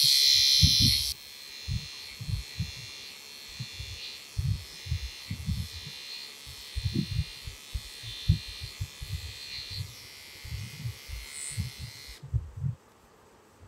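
Battery-powered Braun bikini trimmer running with a high buzz, loudest for the first second and then quieter, until it stops about twelve seconds in. Soft knocks from handling run throughout.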